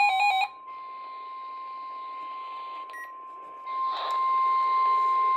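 NOAA Weather Radio 1050 Hz warning alarm tone: a single steady tone that starts about half a second in, right after a short burst of rapidly alternating data tones ends, and gets louder a little before four seconds in.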